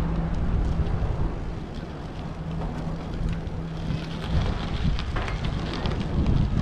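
Wind rumbling on the microphone over a steady low hum that stops about four seconds in; after that, crunching and small crackles as the camera moves over gravel.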